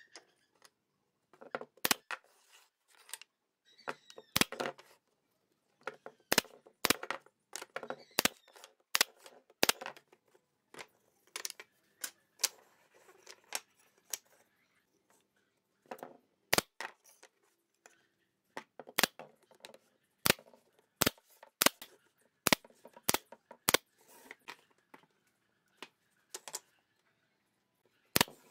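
Irregular sharp knocks and clicks of wooden boards being picked up, set down and butted together on a wooden worktable.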